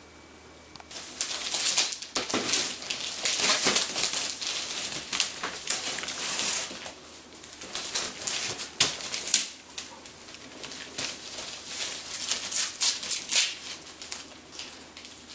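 Wrapping paper crinkling and rustling in irregular bursts with sharp crackles as a gift-wrapped box is handled and unwrapped, starting about a second in.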